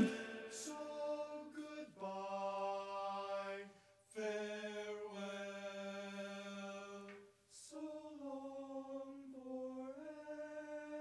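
Men's close-harmony a cappella singing in barbershop style, soft and without words: long held chords that change every few seconds, with a quick breath about a second in and another about three-quarters of the way through.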